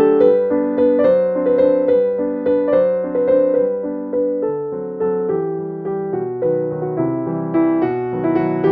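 Background piano music: a gentle keyboard melody with notes struck in a steady rhythm.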